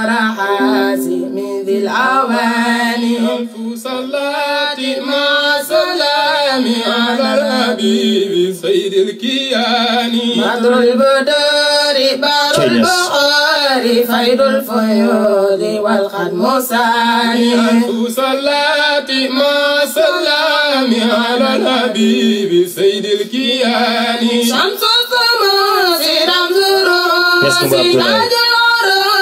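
Islamic devotional singing played as music, a voice chanting a wavering melody over a steady held low note.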